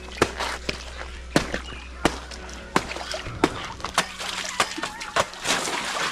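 Banana stalks being chopped with a blade, a sharp chop about every two-thirds of a second, the cut pieces splashing into the water of a concrete fish tank.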